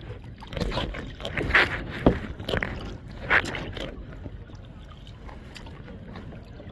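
Kayak paddle strokes splashing and dripping in the water, a handful of strokes in the first four seconds, then a quieter stretch of lapping water.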